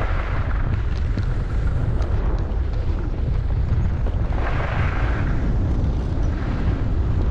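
Wind buffeting the microphone in a steady low rumble while skiing, with the hiss of skis scraping over snow swelling on the turns, strongest about four and a half seconds in.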